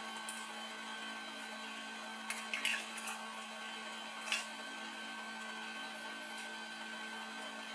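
Small plastic clicks and taps as the battery of a DJI Osmo Action action camera is handled against the camera body, a cluster of clicks a little over two seconds in and a single sharp one past four seconds, over a steady electrical hum.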